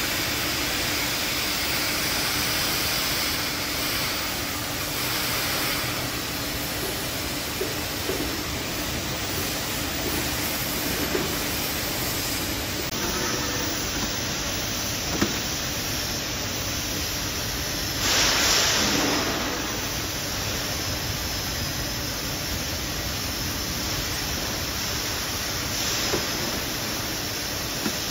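Chicken-processing conveyor machine running: a steady mechanical hiss and hum with scattered light clicks, and a louder rush of noise about eighteen seconds in.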